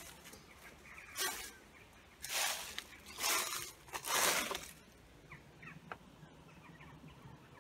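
Footsteps rustling and crunching through dry leaves and undergrowth, four or five short bursts in the first half. Then small birds chirping faintly.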